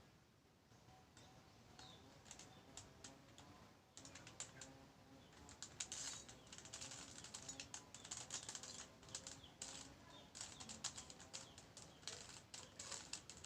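Plastic 3x3 Rubik's cube being turned by hand: faint, quick clicking and clacking of its layers rotating, sparse at first and then coming thick and fast from about four seconds in.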